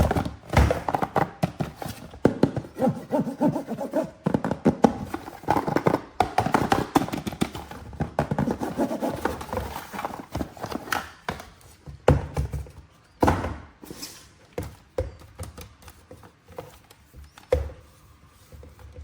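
Toy figure packaging being handled during unboxing: a dense run of crinkling and clicking for the first ten seconds or so, then scattered separate taps and knocks.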